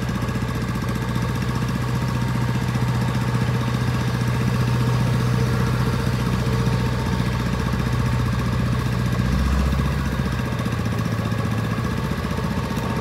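Engines of a rice combine harvester and a tractor hauling rice sacks, running steadily with a constant hum. A deeper rumble swells for about a second, some nine seconds in.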